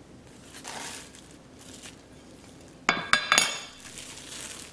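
A glass baking dish knocking and clinking against hard kitchen surfaces, with a quick cluster of sharp ringing clinks about three seconds in, and soft plastic-wrap rustling.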